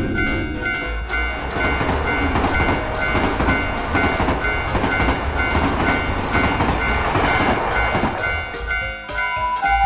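Japanese railroad crossing bell ringing its steady, repeating kan-kan while a train passes through the crossing; the noise of the passing train fills most of the stretch and dies away near the end.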